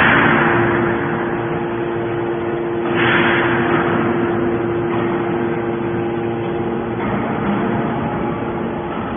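Horizontal hydraulic metal baler running: a steady hum from the machine, with a loud noisy surge right at the start and another about three seconds in, each fading away over about a second.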